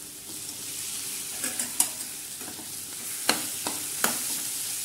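Potatoes and onions in masala frying in a stainless steel kadai, a steady sizzle, as a spoon stirs them and clinks sharply against the pan about four times.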